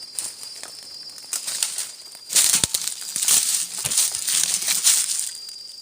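Rustling and crackling in irregular bursts, loudest through the middle, with a steady high insect trill at the start and near the end.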